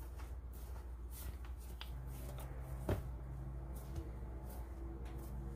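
Hands pressing and patting a folded packet of buttered dough on a granite countertop: soft rustling with a few light taps, the sharpest about halfway through. A faint steady hum runs underneath.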